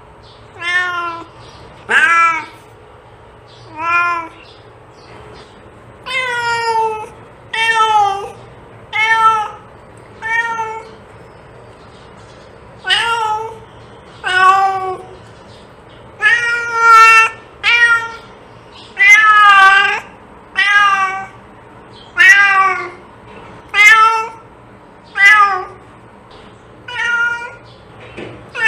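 Domestic cat meowing over and over: about twenty short meows, each under a second, some bending up or down in pitch, with brief pauses between them.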